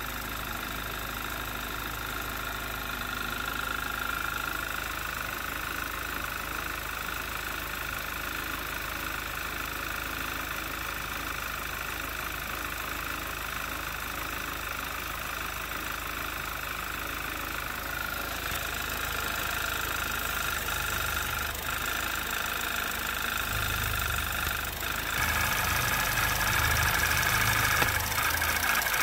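A 2011 Audi TT's 2.0 TFSI turbocharged four-cylinder idling steadily, its pump noise only faint now that the vacuum pump and high-pressure fuel pump roller tappet have been replaced. About 25 seconds in it turns louder, with more rumble and repeated clicking: the same engine before the repairs, with its noisy vacuum pump and fuel pump tappet.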